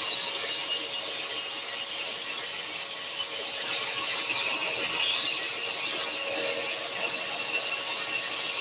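Axminster Trade AT406SS scroll saw running and cutting through a wooden panel about 10 mm thick: a steady buzzing rasp from the reciprocating blade with a thin, steady whine over it.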